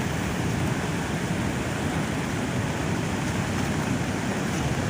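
Swat River in flood: fast, high water rushing in a steady, unbroken noise.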